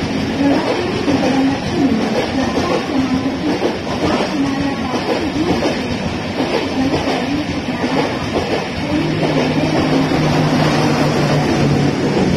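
Indian Railways LHB passenger coaches running past, a loud steady rolling clatter of wheels on rails. A low steady hum joins in after about nine seconds.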